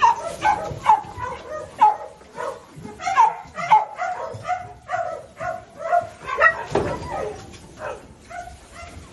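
Puppies yipping and barking: short, high calls in quick succession, several a second, some overlapping.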